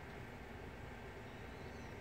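Faint steady outdoor background: a low rumbling hiss with a thin steady high tone, and a faint short chirp near the end.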